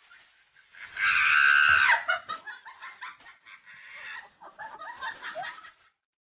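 Shrill animal calls: a loud squealing call about a second in that falls away at its end, then a run of short, choppy clucking calls.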